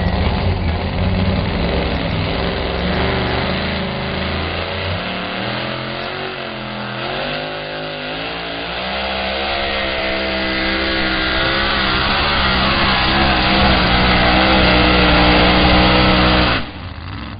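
Supercharged, alcohol-fuelled two-wheel-drive pulling truck's engine at full throttle while it drags the sled. Its pitch drops and wavers about five to nine seconds in, then climbs steadily and stays high until the sound cuts off suddenly near the end.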